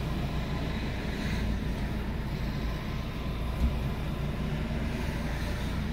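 Car engine idling, a steady low hum heard from inside the cabin, with one brief knock about three and a half seconds in.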